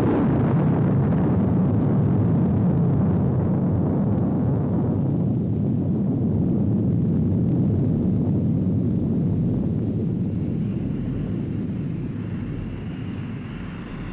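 Atomic bomb blast on a film soundtrack: a sudden explosion followed by a long, low rumble that slowly fades.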